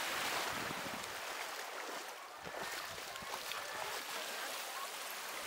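Small sea waves washing and lapping at the shore: a steady wash of water with many small trickling ticks, louder at the start and then easing off a little.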